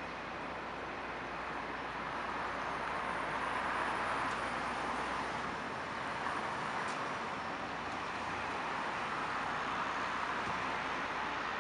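Steady outdoor urban background noise, an even hiss that swells a little about three to five seconds in.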